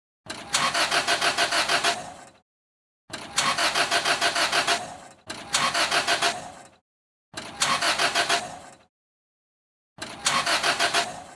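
Car engine cranking on its starter in five short attempts, each about two seconds of rapid, even chugging that dies away without the engine catching: the car won't start.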